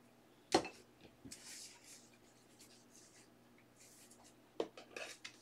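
Plastic top-loader card holders clacking and sliding against each other as trading cards are handled and set down on a table. There is a sharp click about half a second in, then soft rubbing, then a few light taps near the end.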